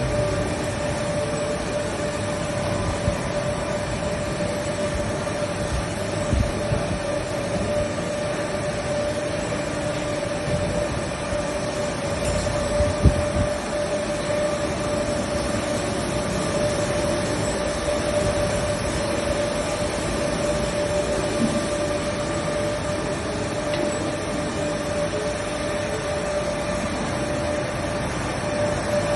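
A steady mechanical hum with a constant mid-pitched tone over a noisy rumble, with a single brief knock about halfway through.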